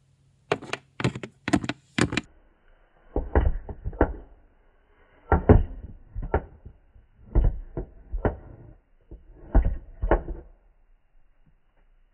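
A quick run of about six sharp knocks on a toy door. Then slower, duller taps and thuds, in irregular clusters: a Littlest Pet Shop plastic figurine being hopped across a plastic dollhouse floor toward the door.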